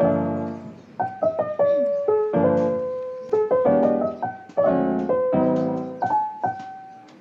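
Background piano music: chords and single melody notes struck one after another, each ringing and fading away.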